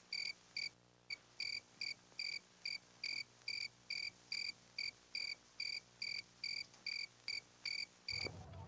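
Cricket chirping at night in a steady rhythm, about two short chirps a second at one high pitch. A low rustling noise comes in near the end.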